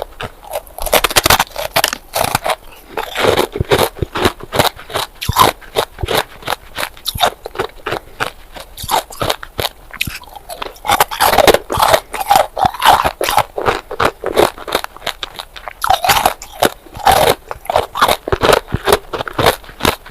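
Close-miked crunching and chewing of hard ice: many sharp, irregular cracks and crackles as the ice is bitten and ground between the teeth, in clusters with brief lulls.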